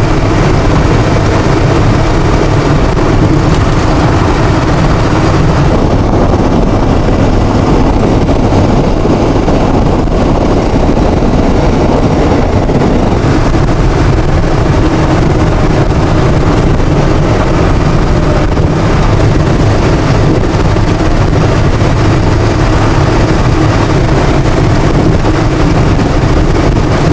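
Steady engine and tyre noise from inside a vehicle cruising on a highway, a constant low rumble with road hiss.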